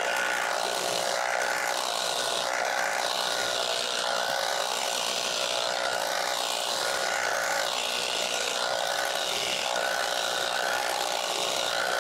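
Battery-powered tea harvesting machine running steadily while cutting tea, its pitch rising and falling every second or so.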